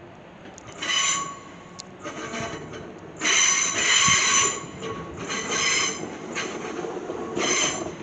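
Regional electric multiple unit rolling along the tracks with its wheels squealing in five high, ringing bursts, the longest and loudest about halfway through, over the low rumble of the moving train.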